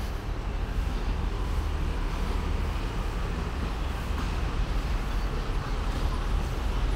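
City street ambience: a steady wash of traffic noise with a strong low rumble.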